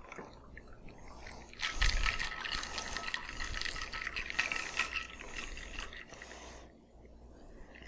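Shaken cocktail poured from a metal cocktail shaker into a martini glass: a thin stream of liquid with ice cubes rattling quickly against the shaker's metal and strainer. It starts about two seconds in and stops a second or so before the end.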